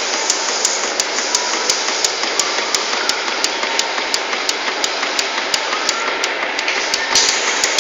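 AECO German-type match splint chopping machine running, a steady mechanical whir with an even clack about three times a second as it chops, and a few louder clatters near the end.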